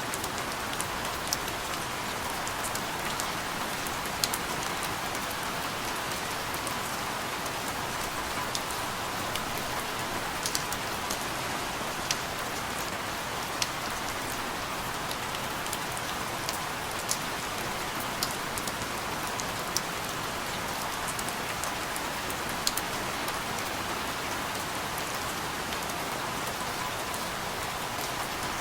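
Steady rain falling, a constant hiss with scattered sharp ticks of single drops landing at irregular moments.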